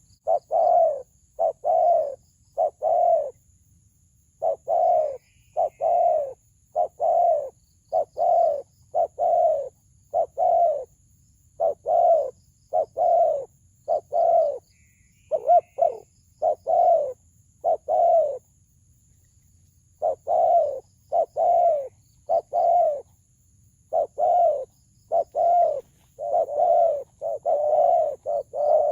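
Spotted dove cooing in a deep, ringing voice: a long run of low coo notes in short phrases, with two longer pauses between them.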